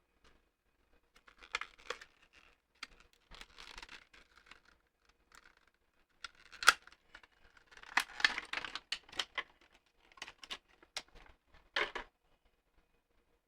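Wrapping being handled and torn off a piece, in irregular bursts of crinkling and tearing mixed with light clicks and knocks, with one sharp click near the middle as the loudest sound.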